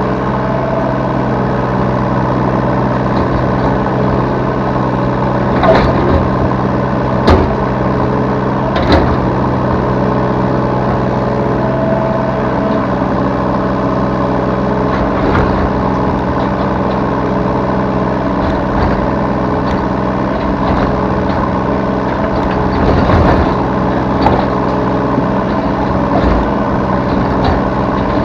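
Diesel engine of a Yanmar B3Σ 3-ton mini excavator running steadily under work, heard from the operator's seat, with several sharp knocks scattered through as the machine digs and loads.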